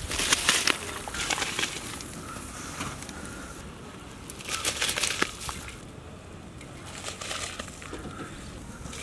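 Handfuls of parboiled rice dropped onto boiling marinated chicken and mutton in a large biryani pot. Each handful lands in a short burst of noise, four times.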